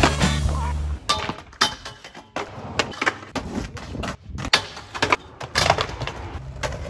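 Skateboards clacking and knocking at irregular intervals on asphalt and a low steel rail: tail pops, boards slapping down and clattering as tricks are tried and bailed, with wheels rolling between the hits. Background music cuts off about a second in.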